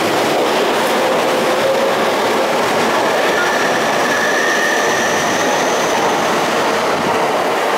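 JR East E231-500 series electric commuter train running alongside the platform, a steady rush of wheels and car bodies going by. A faint high whine rises out of it about three seconds in and fades a couple of seconds later.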